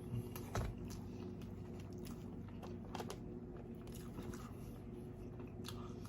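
Close-miked chewing and biting into a burger: soft wet mouth sounds with scattered faint clicks, over a steady low hum.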